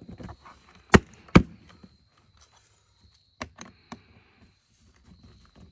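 Two sharp plastic snaps about a second in, then a few lighter clicks a couple of seconds later, as the side access cover of a Westinghouse iGen2500 inverter generator is pressed shut and fastened.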